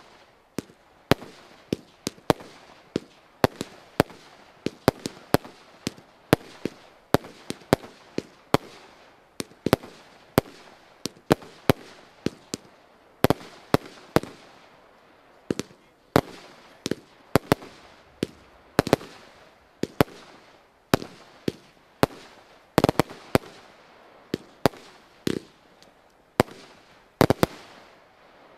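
Original Fireworks 'Walhalla H' consumer firework firing shot after shot: sharp bangs of shells bursting in the sky, about one and a half a second. The shots stop about a second before the end.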